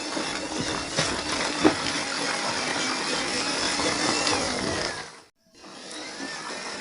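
Small electric motor and gearbox of an MN 99 1/12-scale RC off-road car whining as it drives, with a couple of sharp knocks. The sound cuts out for a moment a little past five seconds in, then carries on.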